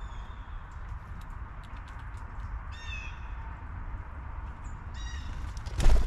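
Blue jay giving two short, harsh calls, about three and five seconds in, over a steady low rumble, with scattered light clicks. A sudden loud rush of noise comes just before the end.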